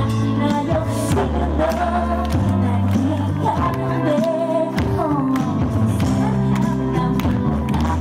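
A woman singing a song into a microphone over an amplified backing track with a steady beat and bass.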